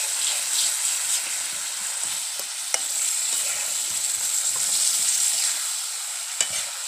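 Meat sizzling as it fries in a wok, stirred with a metal spatula that clinks sharply against the pan a few times.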